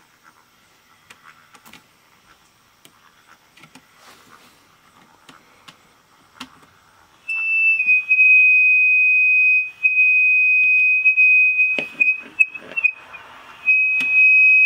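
Mini cassette player's loose speaker squealing with a steady high-pitched feedback tone. The tone starts about seven seconds in, breaks off twice and comes back, caused by the built-in microphone feeding straight to the speaker because the player is stuck in record mode. Faint clicks of metal tools on the circuit board come before it.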